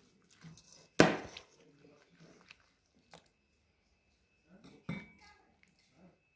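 A metal ladle clinking against a stainless-steel bowl while wet tomato salad is scooped and served into small porcelain bowls: a sharp knock about a second in and a second, ringing clink near five seconds, with faint scraping and clicks between.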